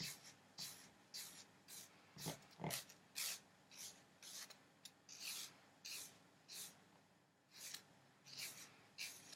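Nail file rasping faintly against the overhanging edge of a nail wrap at the fingertip, in short light strokes about twice a second, with a brief pause about two-thirds of the way through.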